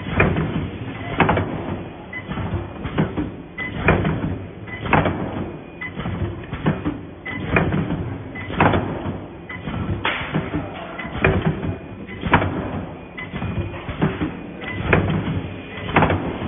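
Gantry-type wire mesh resistance welding machine running: its welding heads come down on the steel mesh with a sharp clack about every second and a quarter, over a steady low machine hum.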